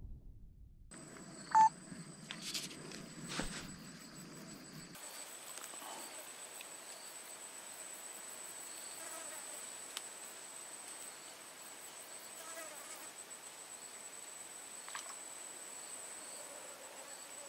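Swamp ambience: a steady high-pitched insect drone, with one short, sharp chirp about a second and a half in and a few faint calls later.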